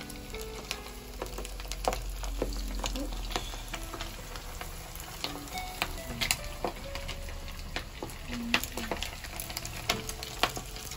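Battered squid fritters deep-frying in hot oil in a pan: a steady sizzle with frequent sharp pops and crackles.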